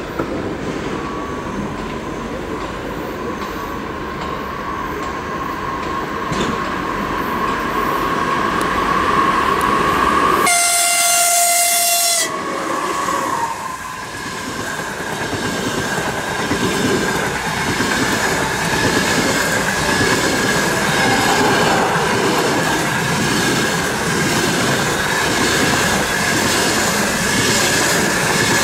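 EP2K electric locomotive approaching, growing louder, then sounding its horn for about two seconds partway through. Its express passenger coaches then roll past with a rhythmic wheel clatter over the rail joints.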